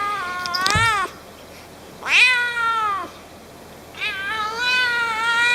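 Domestic cat meowing three times: one call ending about a second in, a short falling meow around two seconds in, and a long drawn-out meow from about four seconds in.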